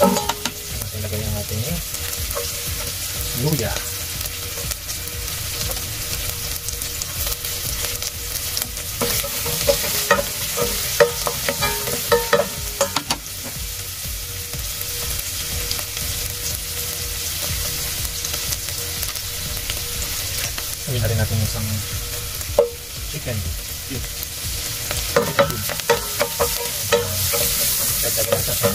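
Garlic, onion and ginger sizzling in hot oil in a stainless steel pot while being sautéed. The steady sizzle is broken all through by the wooden spatula scraping and tapping against the pot.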